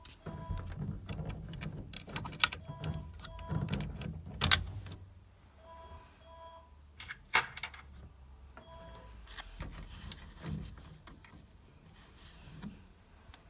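Short electronic beeps, each a steady two-note tone, repeating in pairs several times, among sharp clicks and knocks from hands and tools working on a combi boiler. The loudest knocks come about four and a half and seven and a half seconds in.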